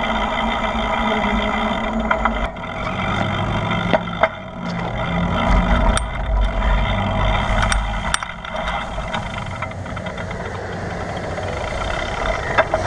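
Wind buffeting the microphone on a bicycle ridden fast, with a steady whine of several tones throughout and a few sharp clicks, roughly every two seconds from about two seconds in.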